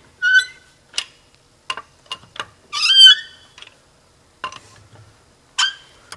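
Tire iron clinking on the wheel's lug nuts, with three short, shrill metallic squeals as the nuts are wrenched loose a quarter turn; the loudest squeal comes about three seconds in.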